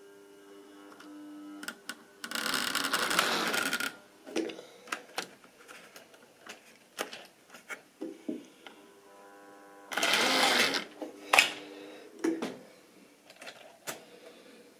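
Electric motor of a model Class 31 diesel locomotive whining steadily as it runs along the track, with scattered clicks from the wheels on the rails. Twice, about two seconds in and about ten seconds in, a loud rushing noise lasting a second or two rises over it.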